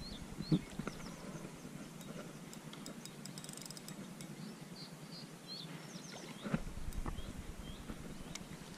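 Birds chirping on and off over a steady outdoor hiss, with a brief knock about half a second in and a louder knock with a short low rumble about six and a half seconds in.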